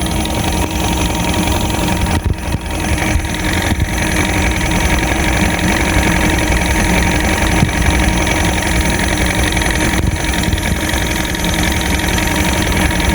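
Boat engine idling steadily, a constant hum.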